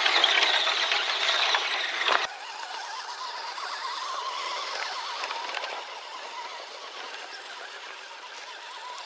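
Small electric motor and gears of 1/10-scale RC crawler trucks whining as they drive over dirt and roots. The sound is louder and harsher for the first two seconds, then drops abruptly to a quieter, steady high whine.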